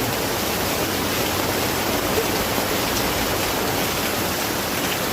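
Heavy rain falling, a dense, steady hiss with no change in strength.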